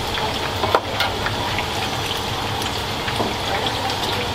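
Soba kitchen noise: a steady rush of running water with scattered light clinks, and one sharp knock under a second in.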